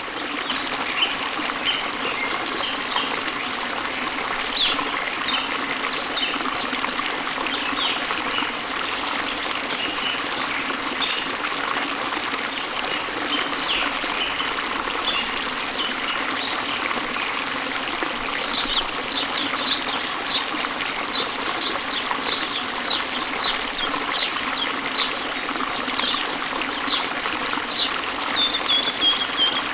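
Steady rush of falling water with songbirds chirping over it. From about two-thirds of the way in, a bird gives a quick series of sharp chirps, ending in a short trill that falls in pitch.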